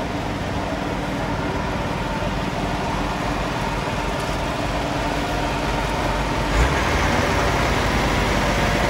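Mobile crane's engine running steadily as it hoists a sailboat in slings, a little louder from about two-thirds in, with a brief low thump at that point.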